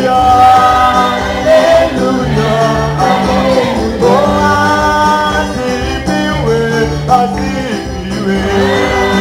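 A women's church choir singing an upbeat gospel song together, over a steady percussion beat with a bell-like jingle.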